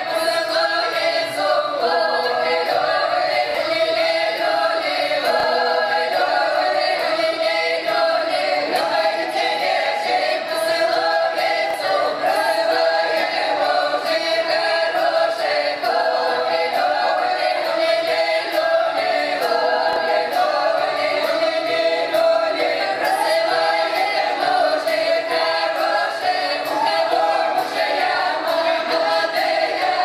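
Russian folk ensemble of mostly women's voices singing a folk song together in several parts, loud and steady.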